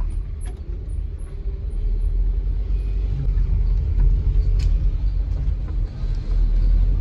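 Hyundai Sonata driving, heard from inside the cabin: a steady low rumble of engine and road noise, with a single sharp click about four and a half seconds in.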